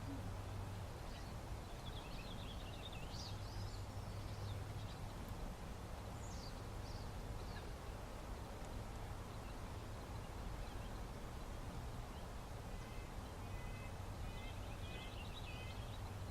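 Small birds chirping in short bursts a few times over a steady low background hum.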